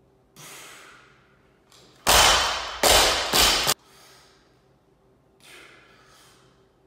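A weightlifter's short, hissing breaths as he presses a barbell overhead from a seated position. About two seconds in there is a much louder rush of noise in three quick pushes, lasting under two seconds.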